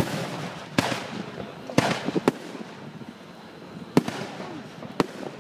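Aerial firework shells bursting: about six sharp booms spread unevenly over five seconds, the loudest right at the start.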